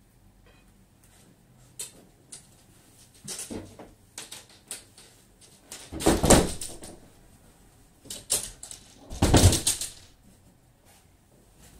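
Scattered clicks and knocks from things being moved about in a room, with two louder, deep thumps about six and nine seconds in.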